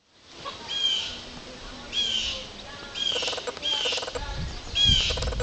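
Chickens calling: five short, high-pitched squawks about a second apart, with quick clucking pulses between the later ones.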